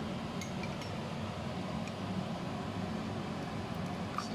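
Steady low background hum with a few faint clicks. Near the end, water starts pouring from a cup into a stone mortar of pounded chilli paste.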